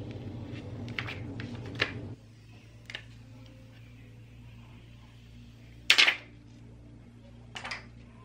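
Handling noise from a smartphone and its plastic screen-protector film: scattered light clicks and taps, with a brief louder crinkle about six seconds in. A steady low hum runs under the first two seconds, then stops.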